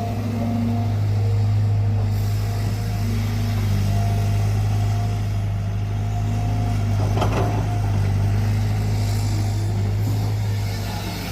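Cat 320GC excavator's diesel engine running steadily while digging, with a higher whine that comes and goes and a clank about seven seconds in.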